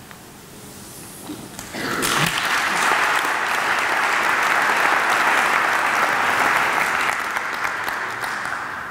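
Audience applauding, starting about two seconds in and tapering off near the end.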